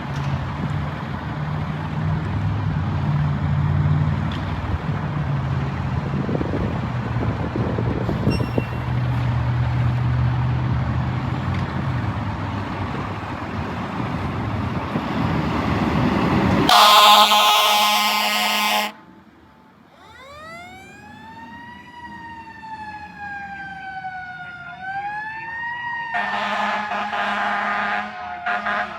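Heavy diesel engine and road noise build steadily, then fire engine air horns blast for about two seconds. A Federal Q mechanical siren winds up in pitch, coasts slowly down and briefly rises again. The air horns blast again near the end.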